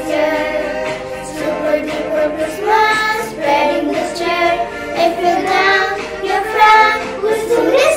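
Children's choir singing a Christmas song.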